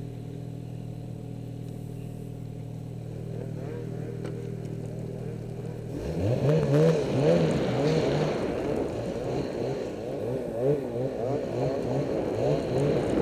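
Snowmobile engine idling steadily, then about six seconds in it is throttled up and pulls away, its pitch rising and falling over and over as the rider works the throttle through deep snow.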